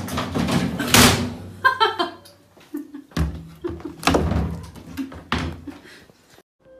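Bangs and thuds of a top-loading washing machine's lid as a cat clambers up and into the drum. The loudest bang comes about a second in, and another about four seconds in.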